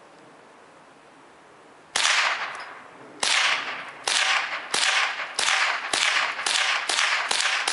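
Savage 64F semi-automatic .22 LR rifle firing a string of about nine shots, starting about two seconds in. The shots come faster as the string goes on, each with a short trailing echo.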